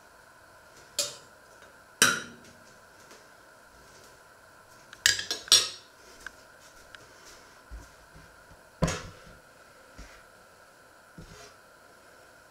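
Kitchenware clattering: a metal spoon and dishes knocking together in a series of sharp clinks, the loudest about two seconds in and a quick run of them around five seconds.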